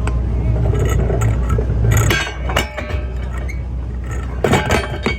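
Fishing boat's engine running steadily as a low hum, with bursts of metallic clinking and rattling about two seconds in and again near the end.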